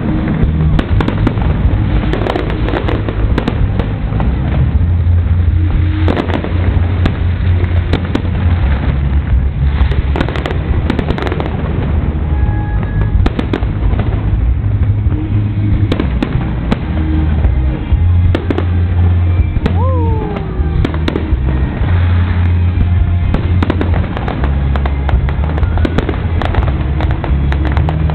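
Fireworks display: a dense, continuous run of bangs and crackling from bursting aerial shells over a deep low rumble.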